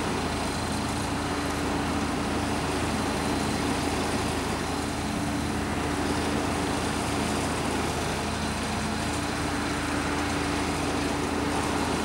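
Road traffic passing on a street, cars driving by one after another over a steady engine hum.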